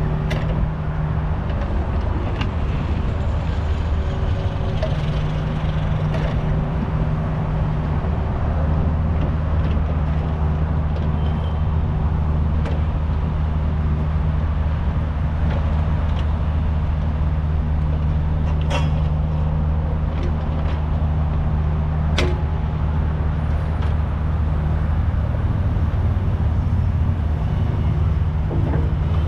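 Kubota U55 mini excavator's diesel engine running steadily while digging, with a few sharp knocks, two louder ones about two-thirds of the way through.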